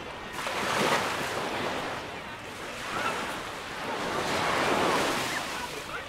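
Sea waves breaking and washing up the beach, surging about a second in and again around four to five seconds in.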